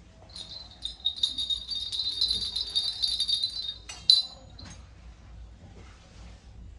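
Small brass pieces jingling and rattling for about three and a half seconds, then one sharp clink.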